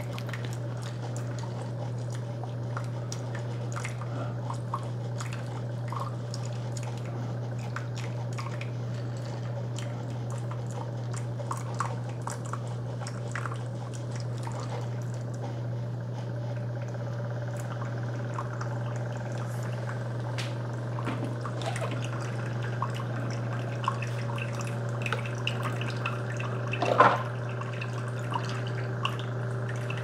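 Keurig K-Iced Essentials single-serve brewer on its over-ice cycle: the pump hums steadily while a thin stream of hot water trickles and drips onto ice cubes in a glass. Small clicks and ticks come from the ice throughout, with one louder tick near the end.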